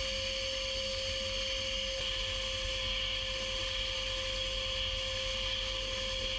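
Abrasive blast gun firing slag grit in a blast cabinet: a steady hiss of air and grit against the rusty steel of a hammer head, over a constant hum and a steady mid-pitched tone.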